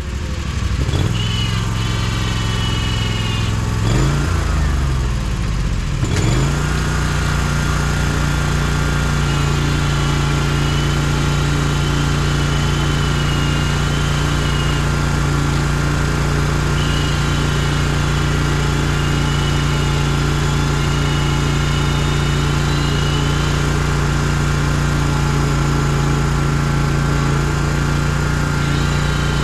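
An engine running steadily at a constant speed. About four to six seconds in its pitch sinks and climbs back up.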